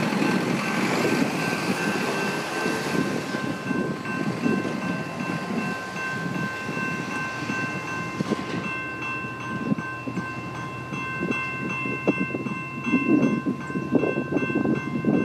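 A General Signals Type 2 electronic level-crossing bell ringing while the flashing lights are on, as a steady ringing tone that turns into a quicker pulsing ring about eight seconds in. Under it is a low, uneven rumble that grows louder near the end.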